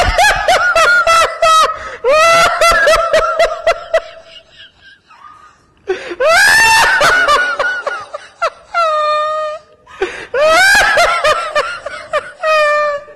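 A man laughing hard and helplessly in three long, high-pitched fits, breaking off briefly about five and ten seconds in.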